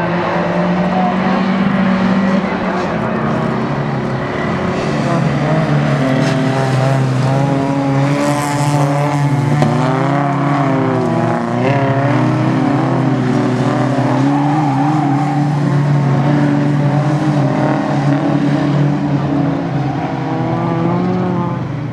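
Several bilcross race cars' engines revving hard on a gravel track, their notes rising and falling over one another as they race through the corners. A brief hiss about eight seconds in.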